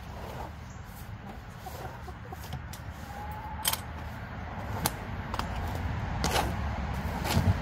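A rake scraping and knocking through coop litter, with about five sharp strokes in the second half, and a chicken giving a short call a few seconds in.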